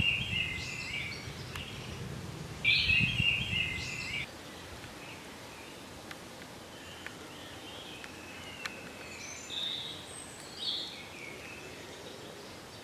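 A songbird singing: two loud song phrases in the first four seconds, then fainter scattered chirps over a steady faint hiss. A low rumble lies under the first few seconds.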